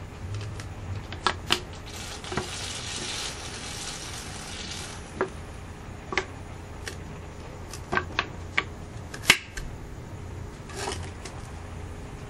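A plastic bubbler bottle and its tube fitting being handled: a series of sharp plastic clicks and knocks, with a hiss lasting a few seconds about two seconds in. A faint low hum runs underneath.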